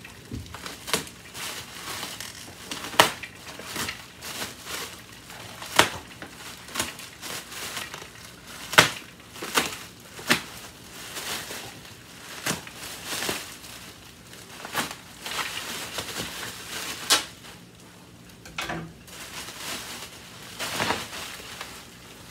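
Plastic bubble wrap crinkling and crackling as it is pulled and unwound from a metal handle tube, with irregular sharp crackles.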